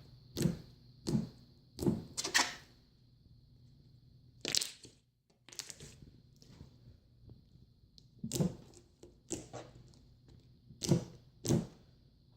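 About nine sharp knocks and cracks at irregular intervals, some in quick pairs: hard objects being handled, bumped and set down.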